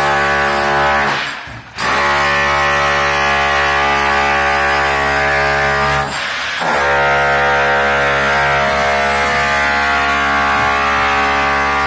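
Electric demolition hammer chiselling into the masonry around a window frame to loosen it, running in long steady bursts. It cuts out briefly about a second in and again about six seconds in, then starts again.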